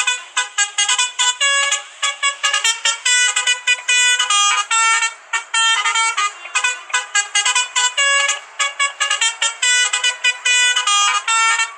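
Bus telolet horn of the basuri type, playing a fast tune of short horn notes at several a second, in phrases with brief pauses between them.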